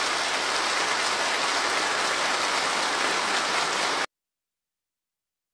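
Studio audience applauding steadily. The applause cuts off suddenly about four seconds in.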